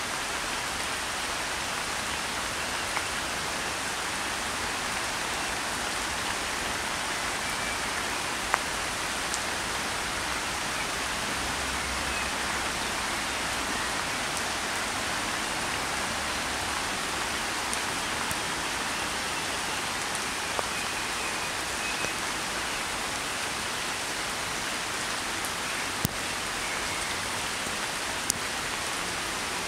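Steady rain falling on a pond's surface, an even hiss, with a few sharper single drop clicks standing out now and then.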